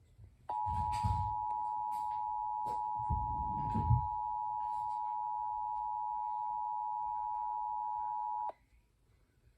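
Emergency Alert System attention signal: two steady tones just below 1 kHz sounding together (the 853 and 960 Hz dual tone). It starts about half a second in and cuts off suddenly after about eight seconds, and it comes ahead of a test message. Low bumps sound beneath it about a second in and again around the third to fourth second.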